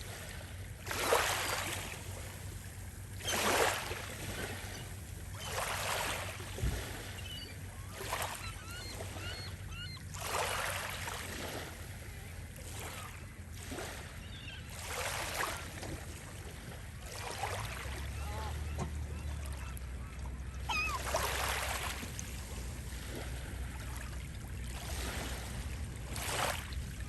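Small ocean waves breaking and washing up the beach every two to three seconds, with faint seagull calls now and then. A steady low hum runs underneath and grows a little louder about two-thirds of the way through.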